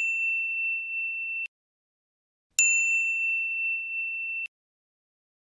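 A bright ding chime rings on and is cut off abruptly, then an identical ding starts about two and a half seconds in, holds for about two seconds and cuts off just as suddenly. The two matching copies, the sudden stops and the dead silence around them mark it as a ding sound effect added in editing.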